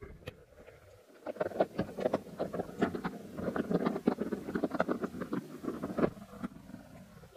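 Rapid, irregular clicking and crackling heard underwater in a pond, starting about a second in and dying away near the end.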